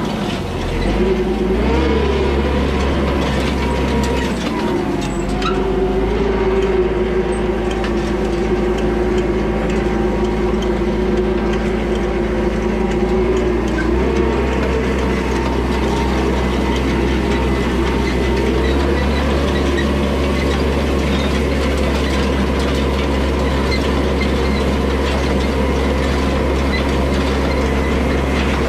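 Yanmar tractor's diesel engine running steadily while towing an antique side-delivery hay rake, with the rake's reel and tines clattering and rattling behind. The engine pitch dips and rises in the first few seconds, then holds steady.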